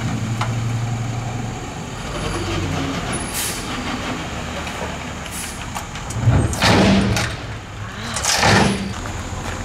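Dump truck's engine running steadily while its raised bed empties a load of dirt, with two loud bursts of hissing air, about six and eight seconds in.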